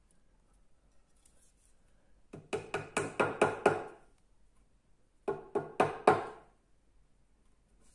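Small cross-pein hammer tapping on an oak table leg: a quick run of about seven light taps, a pause, then four more, each with a short wooden ring.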